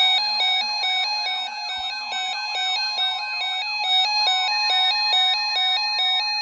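Electronic emergency alert tones: a tone switching rapidly back and forth between two pitches over a warbling, siren-like wail. It is the attention signal that comes before a National Weather Service severe thunderstorm watch announcement.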